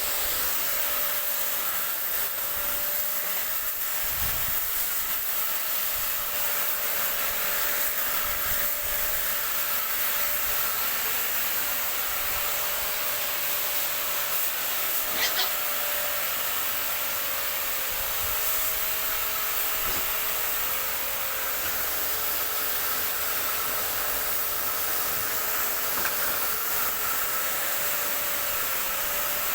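Steady hiss of water spraying, with a steady machine hum underneath and a short sharp sound about halfway through.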